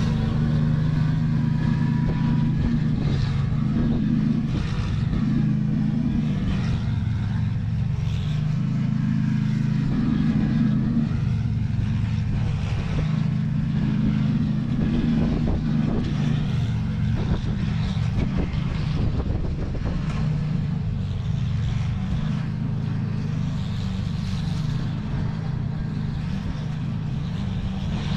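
Engine of an Ariens Classic 24 two-stage snow blower running steadily under load.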